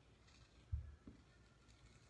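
Near silence: room tone, with one short, soft, low thump about three quarters of a second in.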